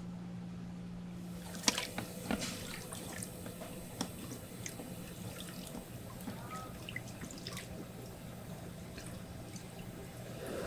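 Wet raw shrimp being handled in a perforated aluminium scoop: water dripping and trickling with many small irregular clicks and taps.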